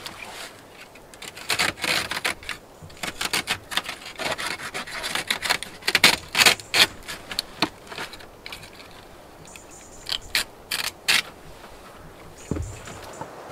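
Orange reinforcing mesh being spread and pressed flat by hand over a sheet: a run of short scratchy rustles and scrapes with pauses between. A dull knock comes near the end.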